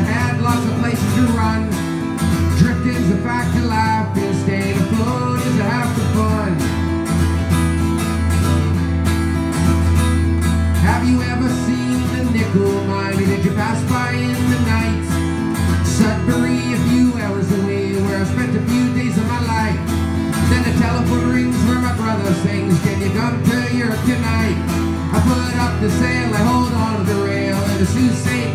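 Acoustic guitar strummed steadily in a folk-rock song, with a man singing over it.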